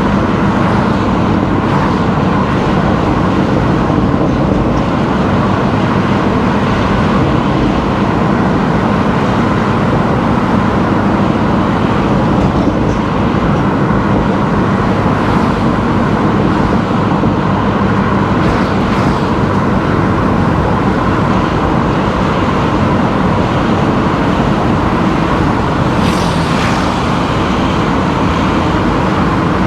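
Car driving on a road: steady engine and tyre noise, with a brief higher hiss near the end.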